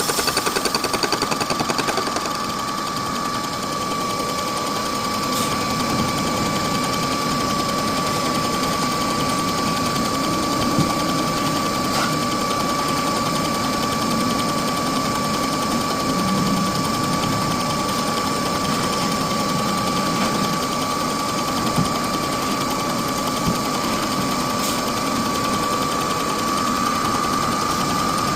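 Bridgeport milling machine running a shop-made fly cutter, with a steady whine. A rapid even pulsing is heard for the first couple of seconds, then the running evens out with a few faint ticks.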